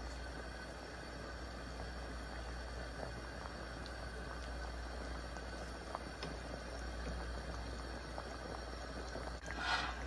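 Pan of vegetable and malanga broth simmering on the stove, a steady bubbling with scattered small pops over a low hum. A brief louder rustle comes near the end.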